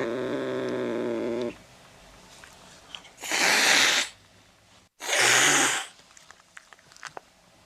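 A cat's drawn-out, low meow ends about a second and a half in. Then come two short, breathy hisses about a second apart.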